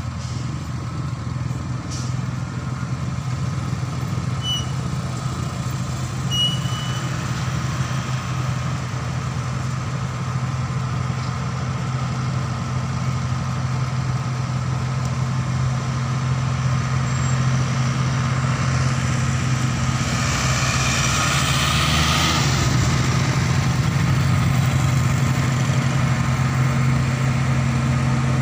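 Slow uphill traffic: a laden cargo truck's diesel engine running steadily under load, growing louder as it climbs nearer. About three-quarters of the way through, another vehicle passes close by with a brief rush of noise.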